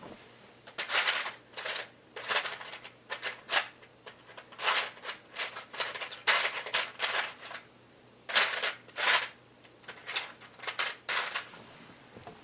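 Plastic Lego Technic pieces clicking and rattling in bursts as they are handled and pressed together, connector pins going into a beam.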